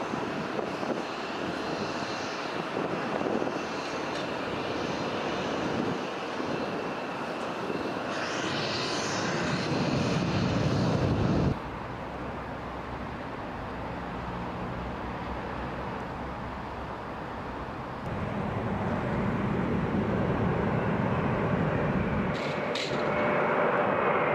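Jet airliner engines heard in separate clips: a Boeing 767 climbing out after takeoff, cut off abruptly about halfway through by the quieter, steady hum of an Airbus A330 on final approach. The jet noise grows louder again near the end as the A330 rolls along the runway.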